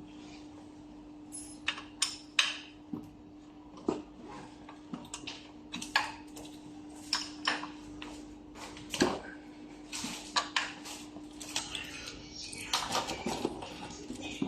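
Irregular metallic clicks and clinks of hand tools and metal parts being handled, over a steady low hum.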